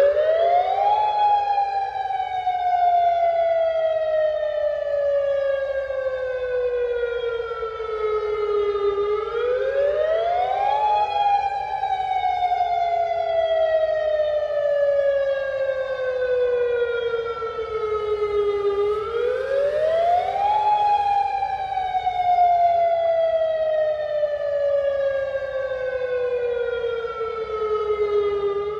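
Outdoor civil-defense warning siren sounding a tsunami warning. It wails in a repeating cycle: a quick rise in pitch, then a long slow fall, about every ten seconds, three times.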